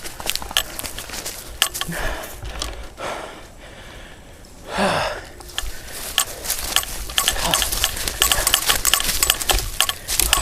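Footsteps crunching on rough ground, quickening into fast steps near the end, with a few loud breaths through the middle.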